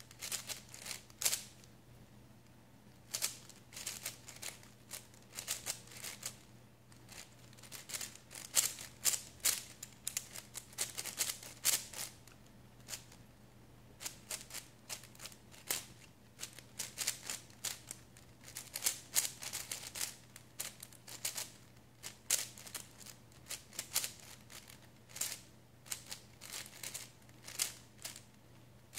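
Plastic Cubing Classroom MF5 5x5 speedcube being turned fast in a timed solve: rapid, irregular clacking of the layers in quick runs broken by short pauses.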